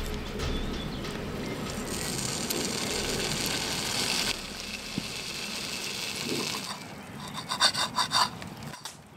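A steady hiss that eases off about four seconds in, then near the end a quick run of short scraping strokes: cutlery scraping and sawing against a metal plate as food is cut.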